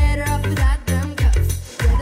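Live pop song over a concert sound system: a woman singing into a handheld microphone over a steady kick-drum beat and bass.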